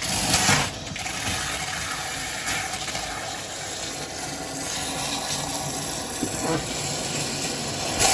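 Water running steadily from a kitchen faucet's pull-down hose with its spray head removed, splashing into the sink drain strainer. The open line is being flushed so air and debris don't foul the aerator.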